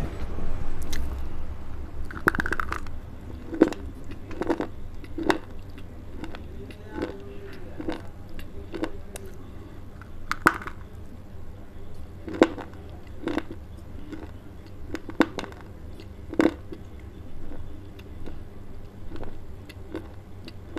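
Close-miked crunching of a piece of dry clay being bitten and chewed, one sharp crunch every second or so.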